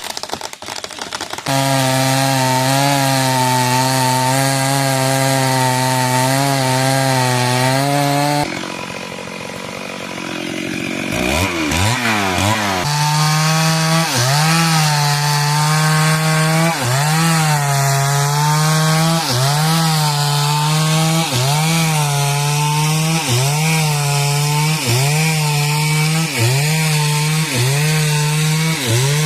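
Stihl two-stroke chainsaw running at full throttle, easing off for a couple of seconds about a third of the way in, then revving back up. From then on its pitch dips and recovers about once a second as the chain cuts into wood.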